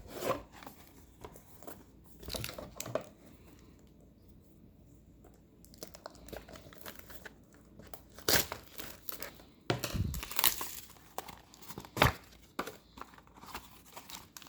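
Plastic and card packaging crinkling and rustling in intermittent bursts as Pokémon trading cards are handled and unwrapped, with a few sharper crackles in the second half and a quieter pause partway through.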